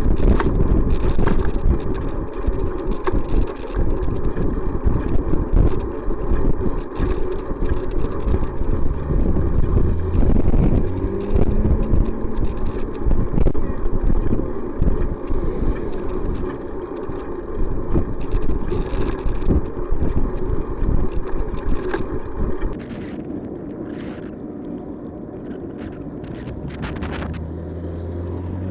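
Wind buffeting the microphone of a camera on a moving bicycle, with road rumble; the noise drops suddenly about 23 seconds in. A passing car's engine hum rises briefly about ten seconds in and again near the end.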